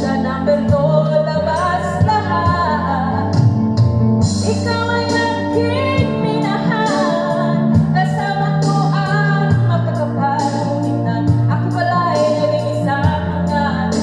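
A woman singing karaoke into a handheld microphone over a backing track with a steady bass line, played loud through a loudspeaker.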